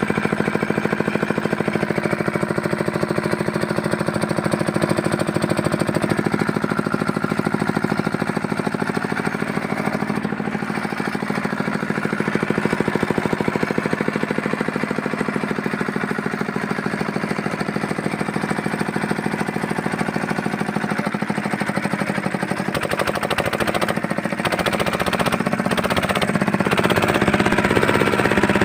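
Fitter single-cylinder diesel engine running steadily with a fast, even beat, with the air bled out of its fuel injection pump so that it does not misfire. It gets somewhat louder and rougher near the end.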